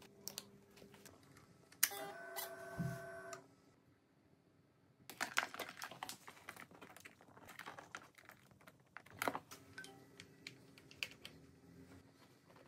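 Scattered clicks and rustling as hands plug motorcycle wiring connectors together, then quick key taps on a laptop keyboard near the end.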